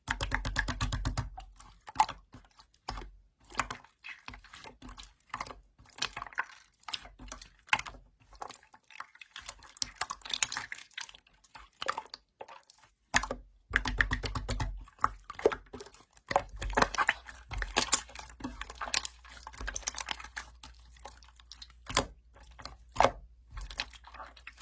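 Slime being squeezed and poked by hand: a steady run of small sticky clicks and crackles with wet squishes, louder and fuller near the start and again about halfway through.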